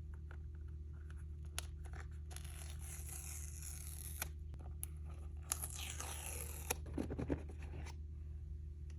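Paper packaging of a new iPhone 15 Plus box being torn open: two longer tearing rips, about three and six seconds in, among small clicks and rustles of the box being handled, over a steady low hum.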